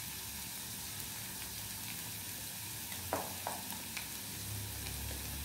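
Vegetables and paneer sizzling steadily in hot oil in a nonstick kadai, with a couple of light taps a little past three seconds in.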